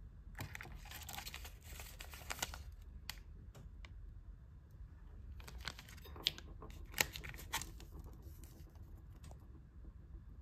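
Paper tea-bag sachets rustling and crinkling as they are picked up and handled, in two spells with a few sharp taps among them.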